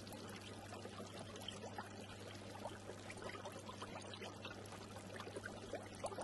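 Faint bubbling, trickling water with many small splashy ticks over a steady low hum.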